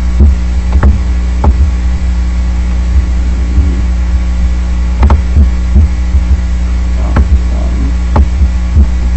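Steady low hum with a handful of short, sharp clicks scattered through, about nine in all.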